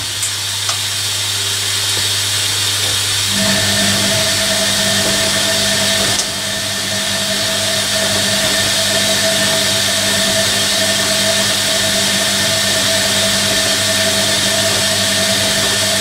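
Hoover Electronic A3172 front-loading washing machine in its first rinse: water hissing in as it fills, over a low hum, and about three seconds in the drum motor starts with a steady whine as the wet laundry tumbles.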